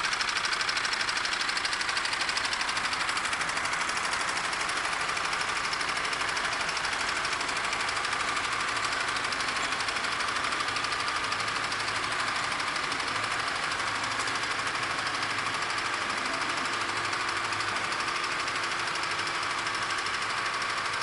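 Engine running steadily at an even speed, a rapid, even clatter that neither rises nor falls.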